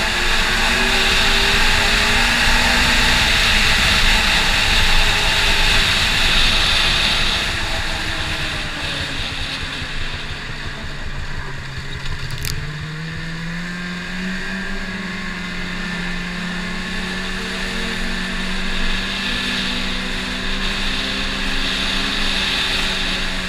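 Snowmobile engine running at speed under a steady rush of wind noise. The engine note sags as the sled slows into a bend about ten seconds in. A single sharp click follows, then the note climbs again as it accelerates and holds steady.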